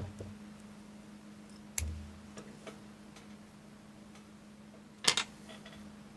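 A few sharp clicks and taps from handling a jig and tying tools at a vise, the loudest a double click about five seconds in, over a steady low hum.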